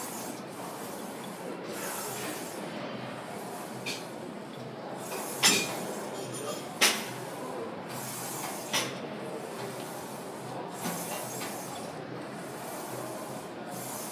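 Gym room noise with a soft hiss that comes and goes, broken by a few sharp clanks of metal gym equipment, the loudest three near the middle.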